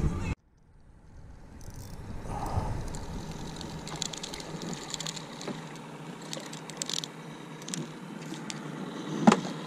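A spinning reel being cranked to bring in a hooked yellow perch: faint, irregular clicking over a low steady background, after a sudden drop to silence just after the start.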